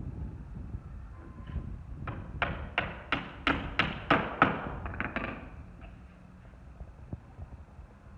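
A hammer striking about ten quick blows, roughly three a second, driving a nail into the corner of an old wooden window frame; each blow is a sharp knock with a short ring. The blows start about two seconds in and stop about five seconds in.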